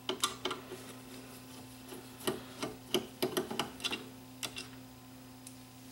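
Hand screwdriver removing the screws that hold the tape mechanism in a Sony DTC-75ES DAT recorder: irregular small clicks and ticks, bunched around the middle, over a steady low hum.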